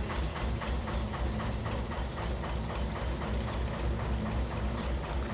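Narrowboat's two-cylinder Petter PD2 diesel engine running steadily at slow speed, with an even beat of about four strokes a second.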